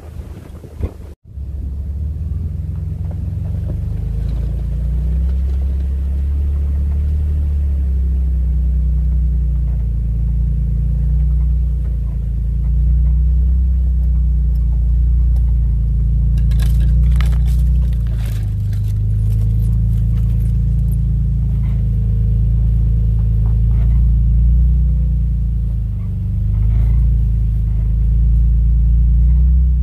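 Steady low vehicle rumble, with a few short clicks about seventeen seconds in.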